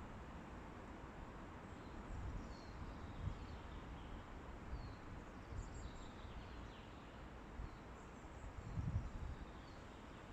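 Wind in a forest, with low gusts buffeting the microphone, and faint short falling bird chirps now and then.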